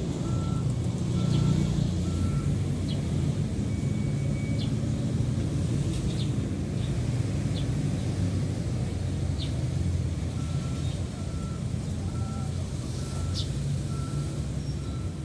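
Vehicle reversing alarm beeping about twice a second over a low engine rumble; the beeps stop about two and a half seconds in and start again about ten seconds in. Short high chirps, like small birds, come and go throughout.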